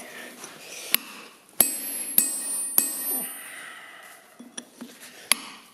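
Hand hammer striking a steel punch driven into a glowing hot steel block on an anvil, punching a hole through it. There are a few sharp, ringing metallic blows about half a second apart in the first three seconds, then one more near the end.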